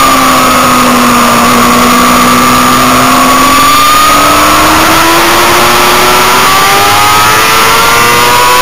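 Motorcycle engine heard from on board at speed, under heavy wind noise. The engine note holds steady through a leaning bend, then rises steadily over the last five seconds or so as the bike accelerates onto the straight.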